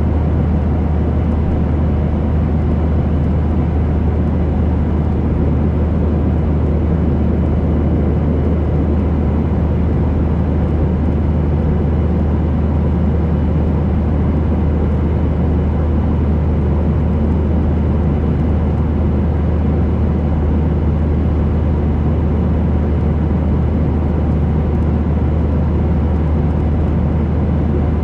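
Airliner cabin noise at cruising altitude: the steady rumble of the engines and airflow, heaviest in the low range, with a few faint, even whining tones above it.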